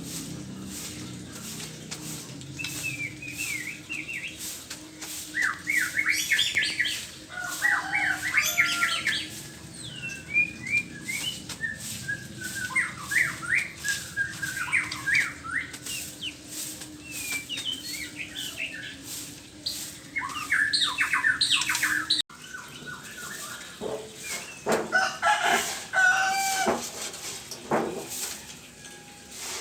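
White-rumped shama singing, rapid chattering phrases of quick rising and falling whistled notes. Short knocks and fluttering join in near the end.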